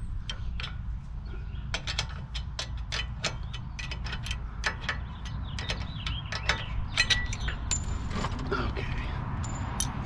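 Quick, irregular metal clicks and ticks of a wrench working at a rear brake caliper, loosening the pad retaining pin, over a steady low rumble.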